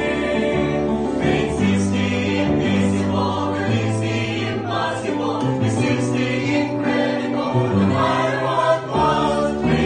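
Choir singing a Christian song in harmony, with long held notes that move to a new chord about every second.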